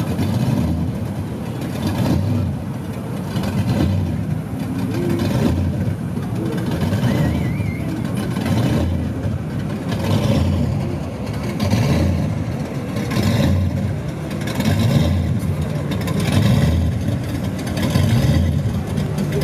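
Classic cars cruising slowly past at a car show parade, a continuous engine rumble that swells and fades as one car after another goes by.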